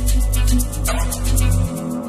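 Amapiano house music: deep sustained bass notes under a fast, even shaker pattern, the bass dropping out near the end.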